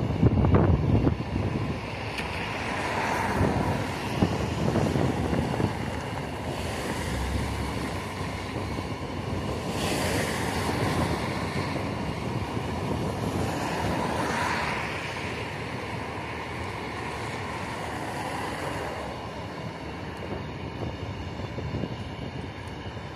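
Passenger train's sleeper coaches and car-carrier wagons rolling past on the track: a steady rumble and rush of wheels on rails that swells and eases a few times.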